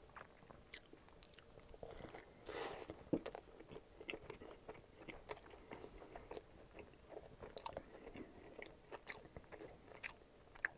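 Close-miked chewing of a mouthful of McDonald's McDouble cheeseburger: soft, scattered mouth clicks and small squishes, with a slightly longer, louder sound a little over two seconds in.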